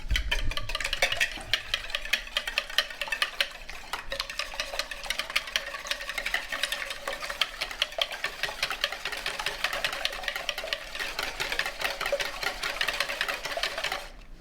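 Raw eggs being beaten in a bowl: a utensil clicking rapidly and steadily against the bowl, stopping near the end.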